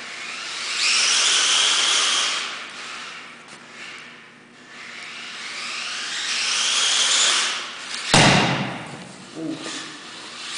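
Xmods 1/28-scale RC car with a T2 motor driving past twice at speed, each pass a high electric-motor whine that swells and fades. About eight seconds in, a sudden loud knock.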